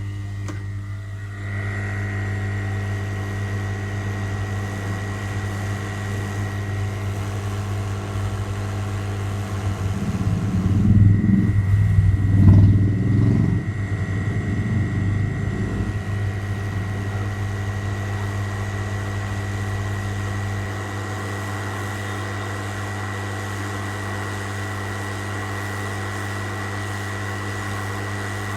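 Steady machine hum with a thin high whine over it. A rougher, louder stretch comes about ten seconds in and lasts several seconds before it settles back.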